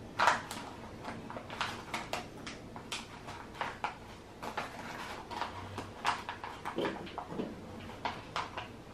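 Paper being handled and pressed against a tabletop, with irregular crinkles and light taps about two a second. The loudest comes just after the start.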